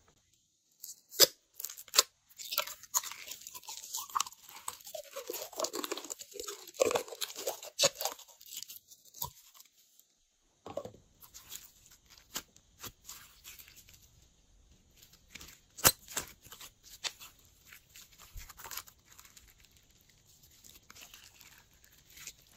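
Glossy slime being squished and stretched by hand, with sticky clicks, crackles and small popping sounds. The sounds come thick and squelchy in the first half, pause briefly, then turn to scattered clicks with one sharp snap.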